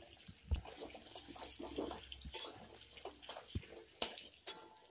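Potatoes frying in hot mustard oil in a metal kadai: a steady sizzle with scattered crackles, and a spatula scraping and knocking against the pan as the potatoes are turned, sharpest a little after the start and about four seconds in.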